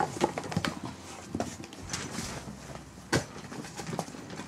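Cats scrambling in a cardboard box: paws scratching and bumping against the cardboard in irregular knocks and scrapes, with one sharp thump about three seconds in.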